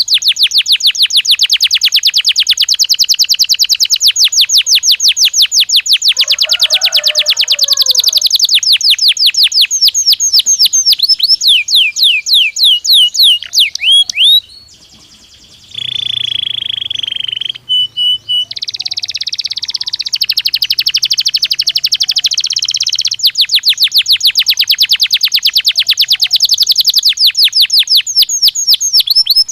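Domestic canary singing: long runs of very fast repeated sweeping notes, broken about halfway by a short pause, a held whistled note and a buzzy trill, before the rapid notes return.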